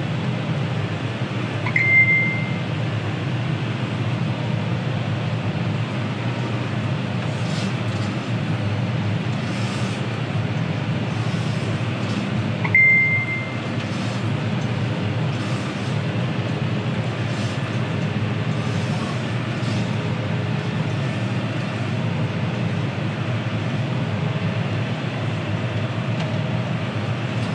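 John Deere 6215R tractor's six-cylinder diesel engine running steadily, heard from inside the cab, with two short high beeps about ten seconds apart.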